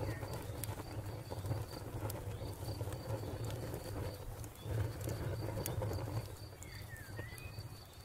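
Fire crackling, with scattered sharp pops and snaps over a steady low rumble.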